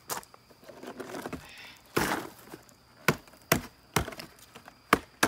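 Spent cardboard firework boxes and tubes being handled on gravel: a series of sharp knocks, six or so, with a longer scraping rustle about two seconds in.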